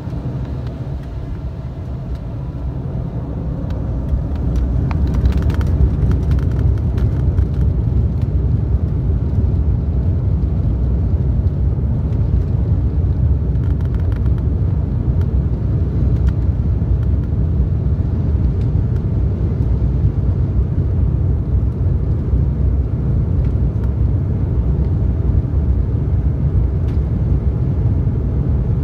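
Embraer 195's GE CF34 turbofans heard from the cabin, spooling up to takeoff thrust about four seconds in, then a steady loud low noise of engines and runway roll through the takeoff run.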